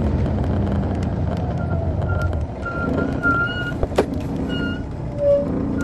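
2002 MCI D4000 coach's Detroit Diesel Series 60 engine heard from the back of the cabin, running and easing off about two and a half seconds in. Several short high-pitched squeals and a sharp click about four seconds in.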